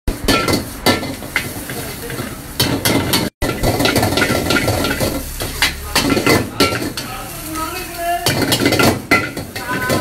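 Steel wok ladle clanking and scraping against a wok while food is stir-fried over a gas flame, over a continuous sizzle. The clanks come in quick irregular runs, each ringing briefly, and the sound drops out for an instant about three and a half seconds in.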